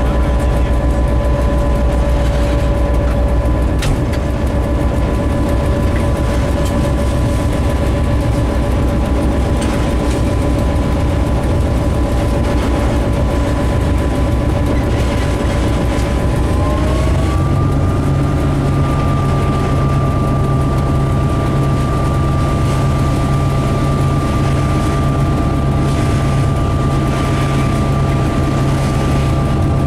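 Diesel locomotive engine running steadily under way, heard from inside the cab. About halfway through, its pitch rises smoothly and settles at a higher, steady speed as the engine revs up.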